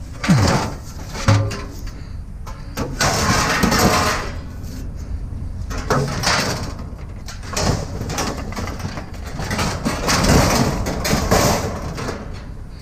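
An engine running, with several noisy swells of about a second each and a few short knocks over it.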